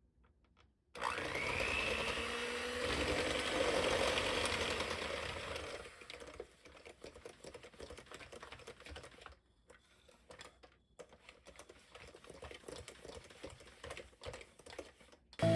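A small electric motor starts with a quick rising whine, runs steadily for about five seconds, then stops, followed by light scattered clicking and handling sounds.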